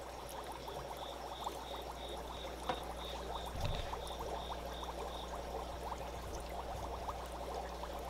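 Faint aquarium water trickling and bubbling, with many small pops, over a steady low hum from the tank equipment. A faint high peep repeats several times a second for the first few seconds.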